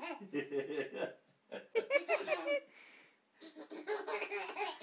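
A baby laughing hard in repeated bouts of giggles, with an adult laughing along; the laughter breaks off briefly about three seconds in.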